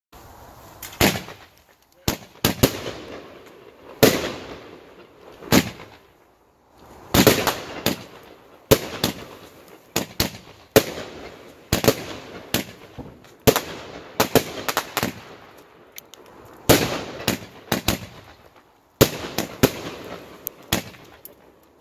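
Brothers Pyrotechnics 'Incredible' 25-shot firework cake firing: a rapid string of loud launch thumps and shell bursts, one or two a second, each bang tailing off, with a couple of brief pauses.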